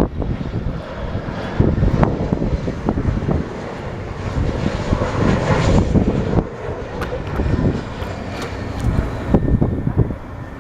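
Fixed-wing airplane engine running, swelling in the middle as the plane passes. Gusty wind buffets the microphone throughout.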